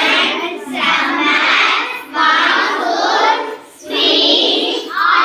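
A class of children chanting together in a sing-song unison, four loud phrases of about a second each with short breaks between them.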